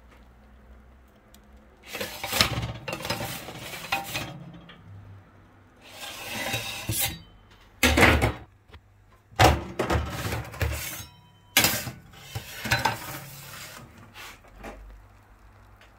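Kitchen clatter: dishes, pans and metal utensils knocking and clinking in a string of bursts, with a few sharp bangs in the middle.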